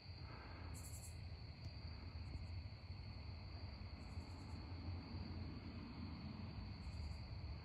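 Faint night-time insect chorus: crickets trilling steadily at one high pitch, with several brief, even higher chirps over a low, steady background rumble.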